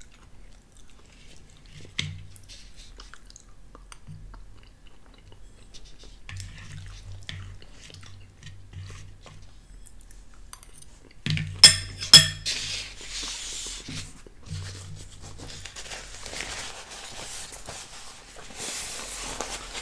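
Quiet chewing with small clicks of a metal fork on a ceramic bowl. About eleven seconds in come two loud, sharp clinks of the fork against the bowl, followed by the rustling and crumpling of a paper napkin.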